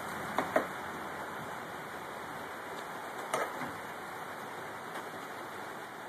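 Steady hiss of rain falling, with a few sharp taps: two close together about half a second in and another about three seconds in.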